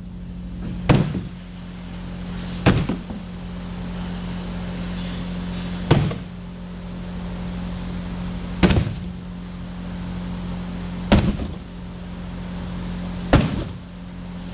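A steady low hum with six sharp knocks or slams, about two to three seconds apart, each ringing briefly.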